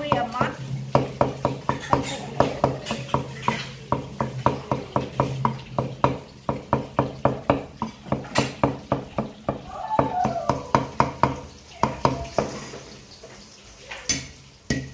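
A cleaver chopping garlic on a thick wooden chopping block: quick, even knocks about four or five a second, slowing to a few scattered strokes after about twelve seconds.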